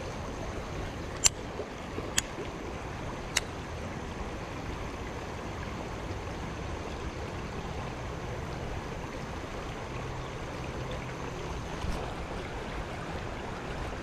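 Steady rush of river water running over rocks in shallow rapids, with a few sharp clicks in the first few seconds.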